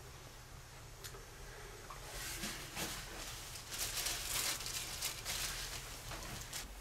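Soft rustling and pattering noises, denser from about two seconds in, over a low steady hum.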